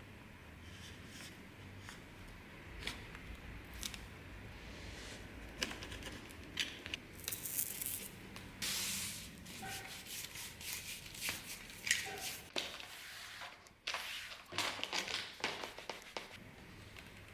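Hand-work noises: irregular rustling, rubbing and scraping strokes with a few sharp clicks, sparse at first and busier from about six seconds in.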